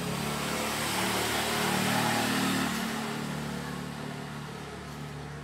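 A motor vehicle passing by: engine and road noise swell to a peak about two seconds in, then fade away.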